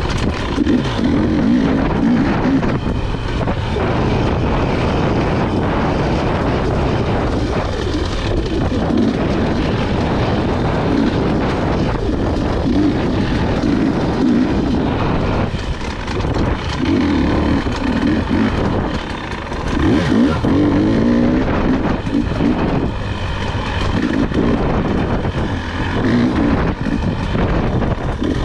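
Husqvarna dirt bike engine revving up and down under throttle as it is ridden, its pitch climbing and dropping again every second or two.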